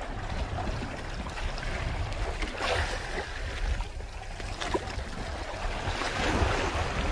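Wind buffeting the microphone over water rushing and splashing past the hulls of a Hobie Tandem Island sailing kayak under sail in choppy sea, with louder rushes of water a little under three seconds in and again near the end.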